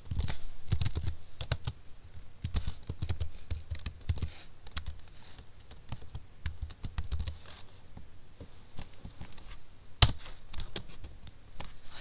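Typing on a computer keyboard: irregular key clicks, with one sharp, louder click about ten seconds in.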